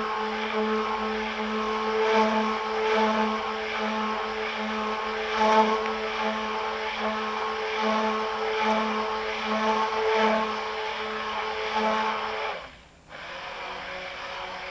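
Handheld stick blender running steadily with a motor hum, churning a white silica slurry in a stainless steel pot. It drops off sharply about twelve and a half seconds in.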